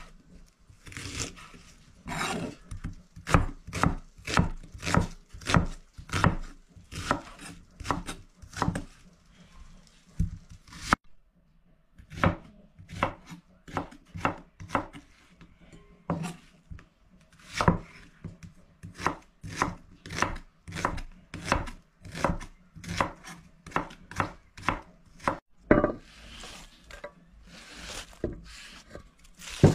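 A kitchen knife slicing onion on a thick wooden cutting board: a steady run of sharp knocks, about two a second, with a short pause partway through. Near the end the knocks give way to a rustling scrape as the sliced onion is pushed off the board into a bowl.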